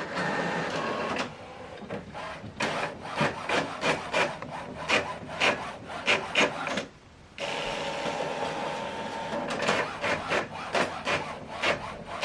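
HP OfficeJet Pro 9120e inkjet printer printing a two-sided document: motors whirring and the print carriage sweeping back and forth in quick repeated scraping strokes, with a brief pause about seven seconds in.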